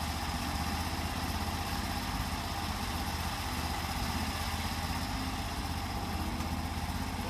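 A sawmill's engine running steadily at an even pitch.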